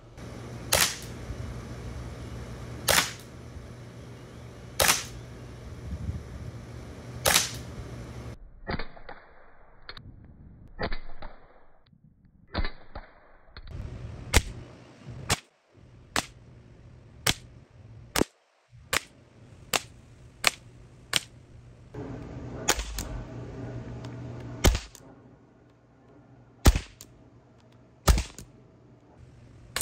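Umarex Glock 17 Gen 5 CO2 pellet pistol firing a long string of single .177 shots, each a sharp crack, spaced unevenly about one to two seconds apart.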